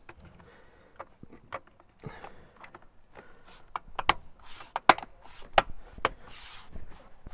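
Plastic door-sill guard being pressed onto a car's door sill: a series of sharp clicks and knocks as its clips snap into place, with rustling of the trim between them.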